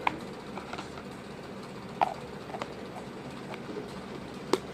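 A stretchy slime-like toy being handled, giving a few scattered small clicks and pops.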